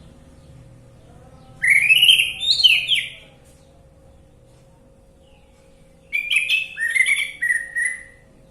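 Orange-headed thrush singing two song phrases, each a quick run of sliding whistled notes lasting about one and a half to two seconds, with a pause between them. A faint steady hum sits underneath.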